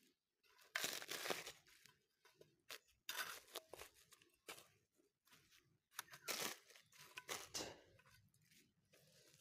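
Dry fertilizer being mixed by hand on a plastic sack: short spells of rustling and crunching, several times, with quiet gaps between.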